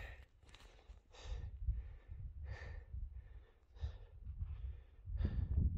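A person breathing hard, a run of soft breaths in and out, winded after the climb to the pass. A low wind rumble on the microphone runs underneath.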